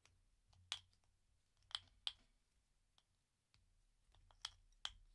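A few faint, sharp clicks and taps at irregular intervals: fingers and nails handling a small plastic thread spool while working its tightly wound thread end loose.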